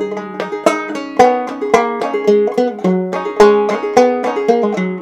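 Nylon-strung banjo played solo: a quick run of plucked melody notes over a low droning bass, with no singing.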